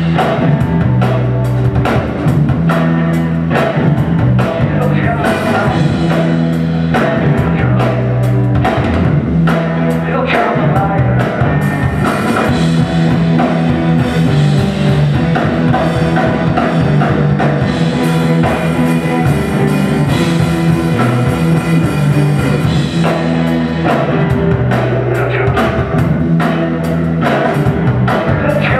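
Rock band playing live: a drum kit driving a fast steady beat under electric guitars and a bass line.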